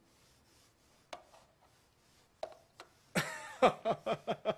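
A few faint taps, then a man chuckling: a quick run of short, repeated laughs starting about three seconds in.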